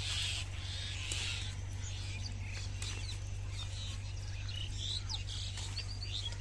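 Birds chirping in scattered short calls, over a steady low hum.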